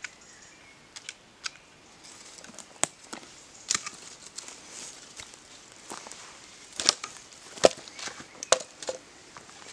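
Irregular sharp snaps and crackles of dry twigs in a newly lit kindling fire as it is tended. The loudest cracks come in the second half.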